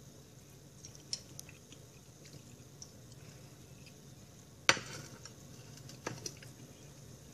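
Quiet chewing with faint chopstick clicks; a little past two-thirds in, a sharp clatter as a ceramic plate is set down on a stone countertop, followed by two lighter knocks.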